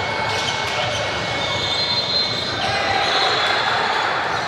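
Basketball game play in a gym hall: the ball bouncing, with voices of players and spectators mixed in.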